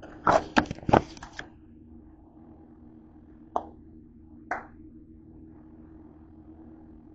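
Handling noise at a kitchen counter: a quick run of knocks and clatter in the first second and a half, then two single sharp clicks about a second apart as the red plastic flip-top cap of a spice shaker is worked.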